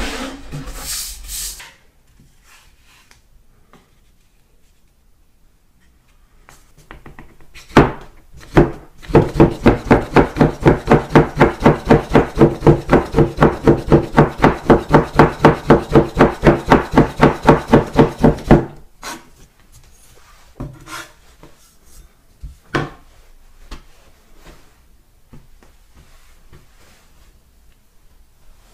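Soba knife cutting through folded buckwheat noodle dough and knocking on the wooden board beneath, about four even strokes a second for nearly ten seconds. A few single knocks come before and after the run.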